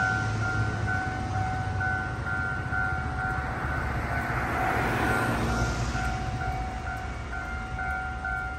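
Railway level-crossing warning bell ringing in a steady pulsing rhythm, over the low rumble of a train, whose rushing noise swells to a peak about five seconds in as it passes the crossing.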